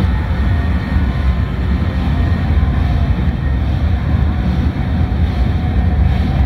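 MAN box truck rolling slowly past close by: a loud, steady low rumble.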